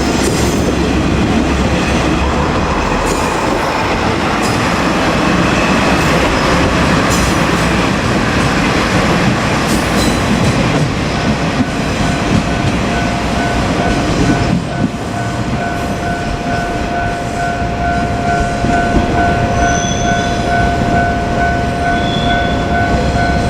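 Train passing close by, its wheels clattering over the rails. A steady, pulsing tone sets in about halfway through, and the train noise eases slightly after that.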